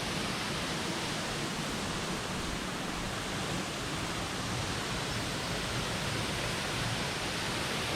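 Waterfall rushing close by: a steady, even roar of falling water.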